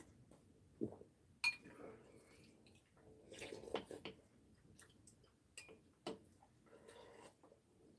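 Quiet eating sounds: a spoon and chopsticks clicking sharply against ceramic bowls, between short bursts of chewing and sipping soup from a bowl.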